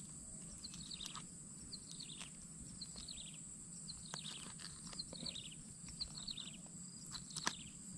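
Faint outdoor birdsong: a run of short chirps, each falling in pitch, repeated about every half second, over a steady high-pitched hum. A few small clicks.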